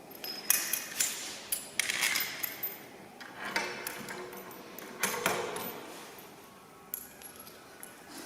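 Metal parts clanking and scraping as a trailer jockey wheel is handled and fitted: several sharp clinks and knocks in the first few seconds, a longer scraping rasp around the middle, then a few light ticks.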